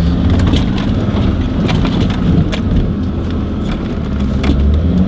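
Off-road 4x4's engine running under load as it drives over rough quarry ground, with repeated knocks and clunks from the suspension and body jolting over the terrain.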